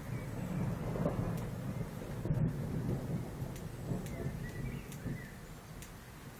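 Rolling thunder: a low rumble that swells about a second in and again around two seconds, then fades away near the end.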